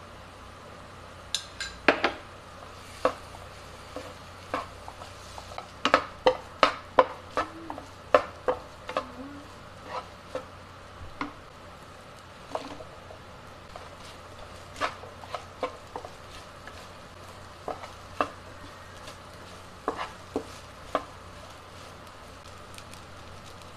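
Wooden spatula scraping and knocking against a nonstick wok while stir-frying rice, in irregular sharp taps that come thickest a few seconds in. A faint steady sizzle runs underneath.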